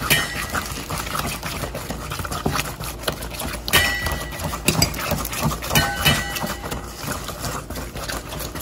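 A metal spoon beating butter and honey in a stainless steel mixing bowl: quick, steady scraping strokes against the bowl's side. Now and then a sharper clink makes the bowl ring briefly.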